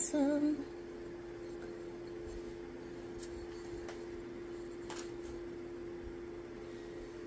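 A steady low hum runs throughout, with a few faint light taps about three to five seconds in as frosted cups are turned over by hand.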